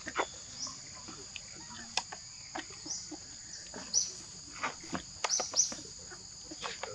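Steady high-pitched insect drone in forest, with scattered short high chirps and a few sharp clicks or rustles.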